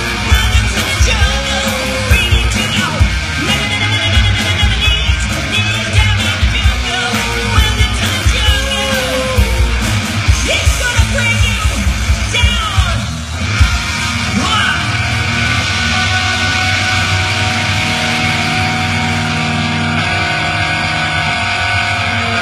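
Live hard-rock band playing loud through a PA: drums, electric guitars and shouted singing. About two-thirds of the way in the drums drop out and an electric guitar holds long sustained notes.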